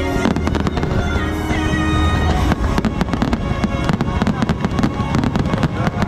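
Fireworks bursting and crackling over the show's music soundtrack. The music holds a low note for the first couple of seconds; from about two and a half seconds in, a dense, rapid run of bangs and crackle takes over.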